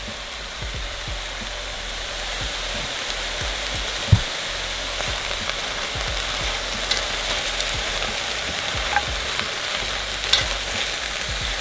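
Diced potatoes, carrots, celery and onion sizzling steadily in oil in an enamelled pot while being stirred with metal tongs, with scattered knocks of the tongs against the pot, the loudest about four seconds in.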